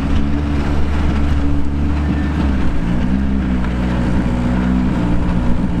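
Praga R1T race car engine running steadily, with its pitch shifting about two and a half seconds in.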